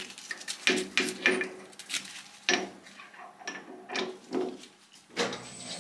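Steel lathe tooling being handled and set in place at the stopped lathe: about a dozen irregular metal knocks and clinks, some ringing briefly, with a louder knock near the end.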